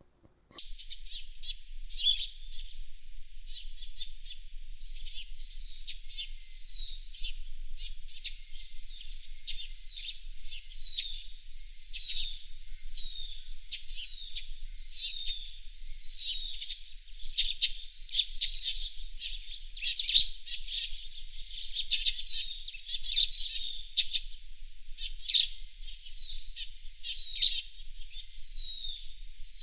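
Birds chirping, with a string of short calls that slide down in pitch, about one a second, over a faint steady high tone.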